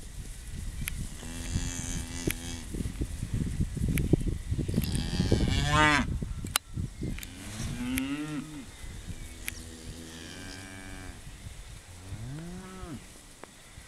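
Cattle mooing, about five calls, the loudest a little before the middle, the last one rising and falling in pitch near the end. A low rumbling noise runs under the first half.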